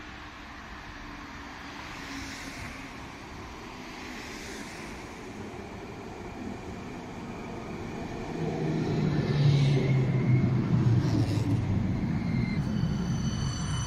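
Steady city street background, then from about eight seconds in the running noise and low motor hum of an approaching tram, growing louder.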